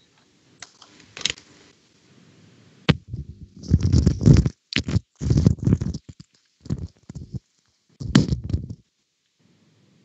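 Microphone handling noise: a sharp click about three seconds in, then bursts of rubbing and bumping against the mic, as a headset is fitted and adjusted, with a last burst near the end.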